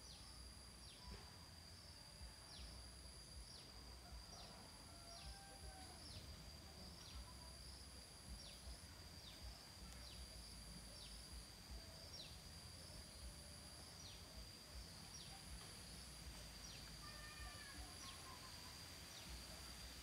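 Faint outdoor chorus of calling insects: a steady high-pitched drone with a short falling note repeating a little more than once a second, and a higher trill that switches on and off, with a few soft bird chirps.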